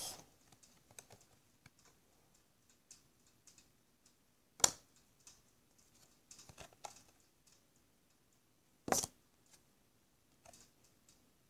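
Handling noise: scattered faint clicks and taps, with two sharper knocks about four and a half and nine seconds in, as cards and the camera are handled.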